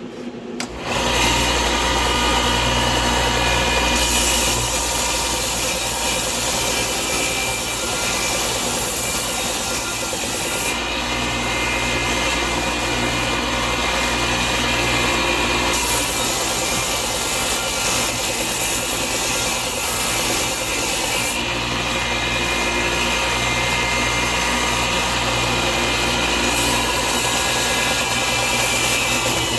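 Belt sander starts about a second in and runs steadily, sanding walnut wood letters; the rasping of wood on the belt grows louder in several spells of a few seconds each as pieces are pressed against it.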